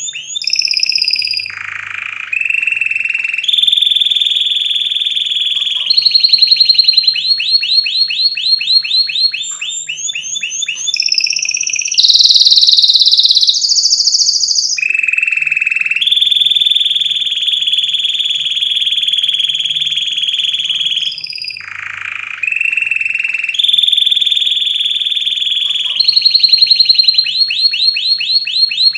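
Domestic canary singing a loud, continuous song of changing phrases. The song mixes rapid runs of repeated falling notes, long steady rolling trills held for several seconds, and a harsher high phrase midway. This is the kind of song played to tutor young canaries.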